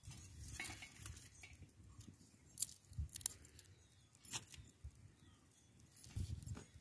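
Open wood fire with twigs being handled and fed into it: scattered light clicks and crackles over a low steady rumble.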